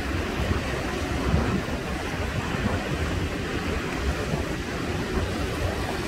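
Sea surf breaking and washing over black basalt shore rocks, a steady rushing wash without letup, with wind buffeting the microphone in a low rumble.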